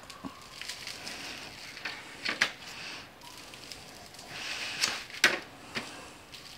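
A spice shaker of dry barbecue rub shaken over a raw beef chuck roast in short bursts, the granules rattling out, with a few sharper clicks about two and a half and five seconds in as the gloved hands handle the meat and the jar.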